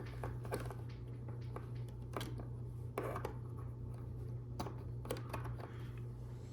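Scattered light clicks and rattles of plastic LEGO Technic pieces being handled and fitted together, about a handful of taps spread irregularly, over a steady low background hum.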